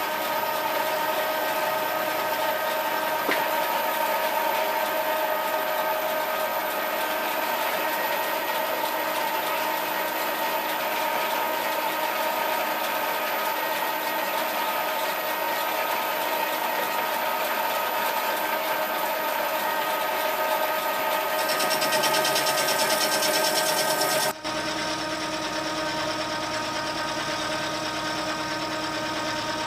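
Vertical milling machine running steadily with a whine of several tones as an end mill cuts an aluminium bronze crosshead. The sound changes abruptly to a slightly different steady machining tone about two thirds of the way through.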